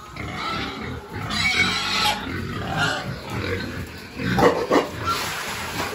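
A group of pigs grunting in their pen at feeding time, with a louder outburst about four and a half seconds in.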